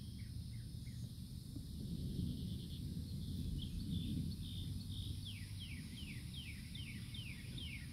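A songbird calling a run of short, downward-sliding notes, two or three a second, starting about five seconds in, with a few fainter chirps near the start. Under it is a steady low rumble.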